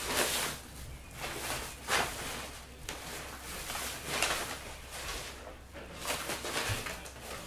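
Rustling and crinkling of a black cloth bag and the shiny wrapping inside it as they are handled and pulled open, in several short bursts.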